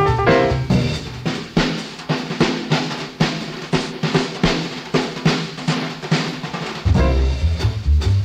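Bebop jazz trio recording: piano and double bass drop out about a second in, leaving an unaccompanied drum-kit break of repeated strokes, and the piano and bass come back in near the end.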